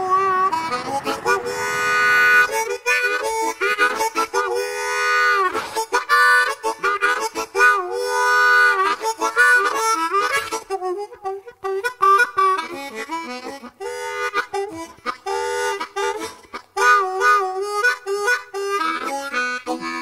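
Harmonica music playing a melody with bending notes. Under it, a low rumble from the passing freight train cuts off about three seconds in.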